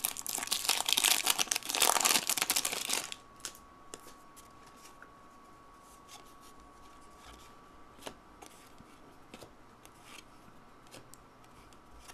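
A trading-card pack's wrapper being torn open and crinkled for about three seconds, then stopping suddenly. After that come a few faint clicks and taps as the cards are handled.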